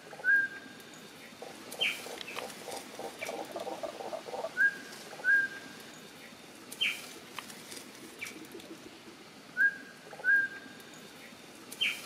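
Animal calls over a steady hiss. A pair of short whistled notes repeats about every five seconds, with a short rising chirp between each pair and a rapid pulsing trill about three seconds in.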